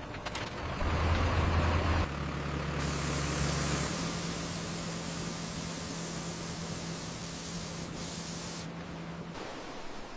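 Steady machinery hum under a loud hiss. The hum jumps to a new pitch abruptly twice, about two and four seconds in, and the hiss thins near the end.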